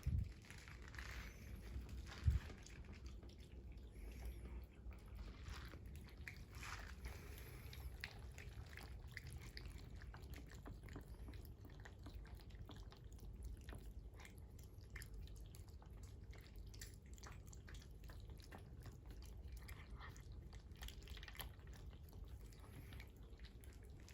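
A cat eating, with many faint small clicks of chewing and of its mouth at the food, and a sharp knock about two seconds in.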